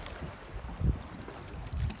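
Wind buffeting the microphone in gusts, a low rumble that swells about a second in and again near the end.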